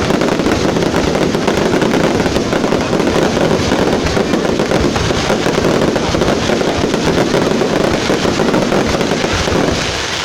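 Fireworks display: a dense, unbroken barrage of bangs and crackles that keeps up without pause, easing slightly near the end.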